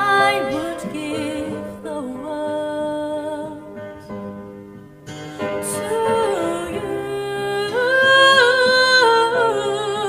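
A woman singing a slow ballad solo, close-miked, with vibrato on the held notes over soft instrumental backing. She breaks briefly about halfway through, then holds a long note near the end.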